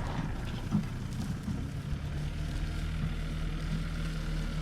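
Motor vehicle engine running steadily nearby, a low even hum.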